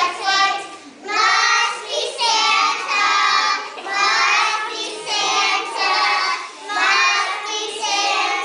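A group of young children singing a song together on stage, in held phrases with short breaks between them.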